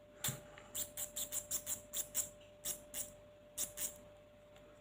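A run of faint, quick clicks, a few a second at uneven spacing, from a small screw being worked with a screwdriver in an airsoft rifle's VSR-10-type hop-up unit.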